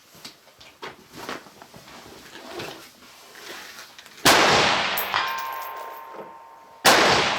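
Two rifle shots about two and a half seconds apart, each loud and sharp with a long fading echo across the open range.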